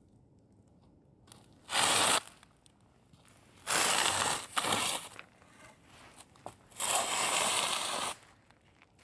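A man snoring heavily in his sleep: three long, rasping snores a couple of seconds apart, the first shorter than the other two. Each is the slack soft palate vibrating as he breathes.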